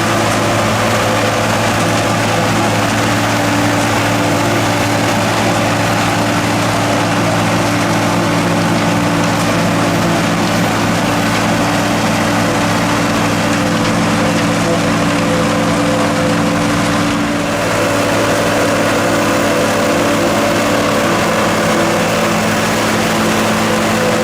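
John Deere 4440 tractor's six-cylinder diesel running steadily under load while it drives a Sperry New Holland 782 forage harvester chopping corn. The note eases briefly about 17 seconds in, then picks up again.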